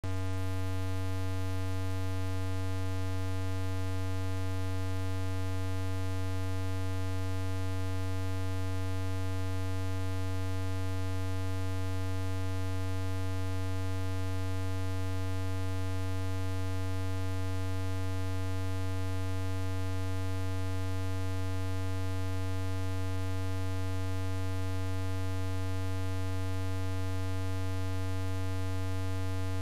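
Steady electrical hum: one strong low tone with a series of fainter higher tones above it and a light hiss, never changing.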